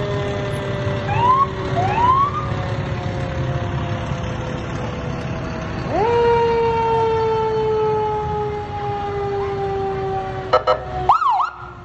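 Passing fire engine sirens over a low engine rumble. Two short rising whoops come early, then a strong wail rises sharply about halfway through and slowly falls over several seconds. A few quick siren chirps follow near the end.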